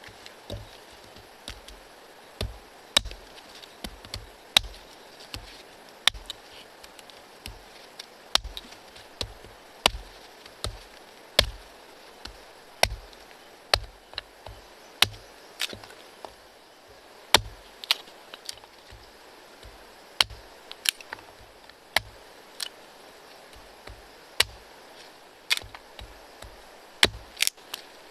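Hatchet chopping wood: a long run of sharp strikes with a dull thud under each, roughly one or two a second and unevenly spaced, some much louder than others.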